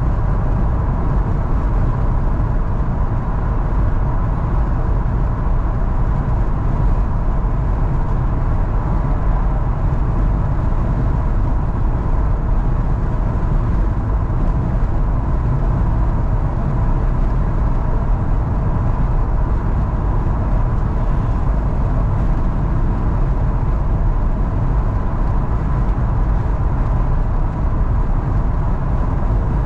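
Car travelling at motorway speed: a steady, unbroken rumble of road and engine noise, with a faint steady whine above it.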